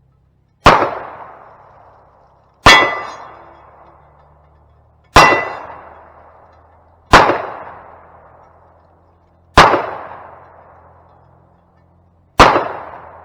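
Six pistol shots fired at a hanging steel plate target, spaced about two to three seconds apart, each a sharp crack with a short echoing tail; on the second and third shots the steel plate rings briefly.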